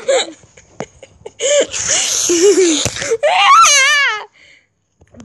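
Children laughing and shrieking, with a high, wavering squeal about three seconds in.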